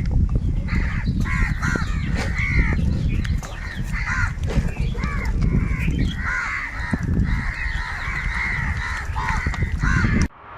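A large flock of crows cawing, many harsh calls overlapping one another, over a steady low rumble. The sound cuts off abruptly near the end.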